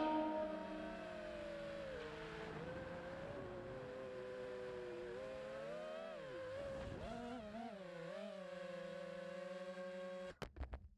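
FPV racing quadcopter's electric motors and propellers whining, the pitch dipping and rising as the throttle changes. The whine cuts out about ten seconds in, with a few sharp knocks as the quad sets down.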